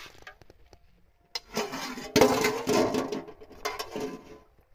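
Metal spoon clattering and scraping against an aluminium cooking pot, with sharp knocks and some ringing. It starts about a second and a half in and stops shortly before the end.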